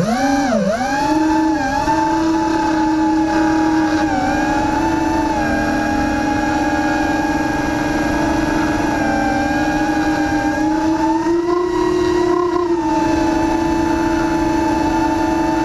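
FPV quadcopter's brushless motors and propellers whining, heard from the onboard camera. The pitch swoops down and back up several times in the first two seconds as the throttle changes, then holds mostly steady, rising briefly about eleven to twelve seconds in.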